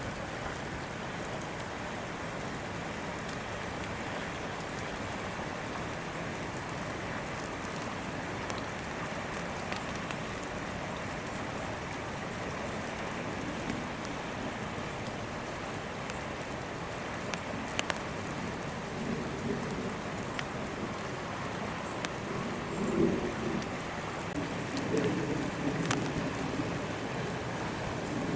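Steady patter and hiss of wet snow falling, much like rain. A few faint knocks and low, indistinct sounds join in over the last ten seconds.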